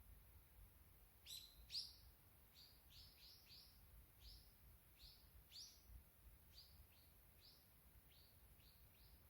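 A small songbird calling in a long run of short, high chirps, each sweeping down in pitch, about two a second. The run starts about a second in, with the loudest notes near the start, and then trails off quieter.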